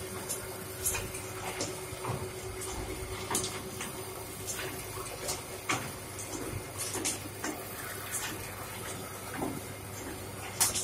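Fully automatic double-die paper plate making machine running: a steady hum with irregular short clicks and hissy ticks from its mechanism.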